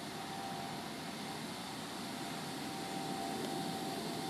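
Steady drone of fire engines' engines and pumps running at high revs while supplying an aerial platform's water jet, with a faint thin whine held on top.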